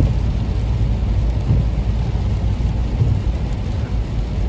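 Inside a moving car on a wet road in the rain: a steady low rumble of tyres and engine with a hiss of rain and spray.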